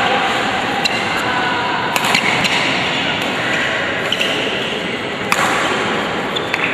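Badminton rackets striking a shuttlecock during a rally in an indoor hall, with sharp hits about two seconds in and again past five seconds and fainter ticks between. Short high squeaks of shoes on the court sound over steady hall noise.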